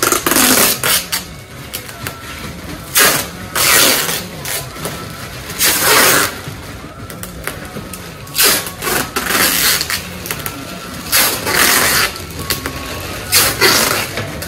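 Clear plastic sheeting crinkling and rustling in irregular bursts as it is pulled and wrapped around a blanket-wrapped bundle.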